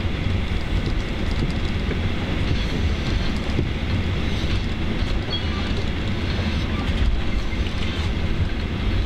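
Boeing 737-800 taxiing, heard from inside the cabin: a steady low rumble of its CFM56-7B engines at taxi power and its wheels rolling over the taxiway.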